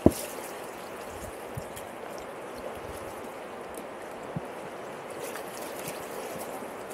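Fast river rapids rushing steadily around an inflatable packraft canoe as the bow paddler strokes. There is a sharp paddle splash right at the start and a smaller knock about four seconds in.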